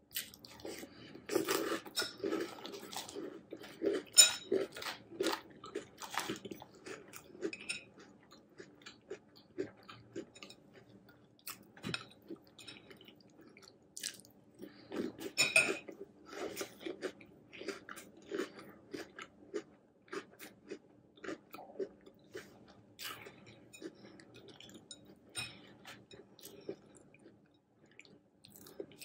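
Close-up crunchy chewing of spoonfuls of hot cocoa cereal with marshmallows in milk, a dense run of small crackles. The loudest crunching comes with fresh bites about a second and a half in and again around fifteen seconds in.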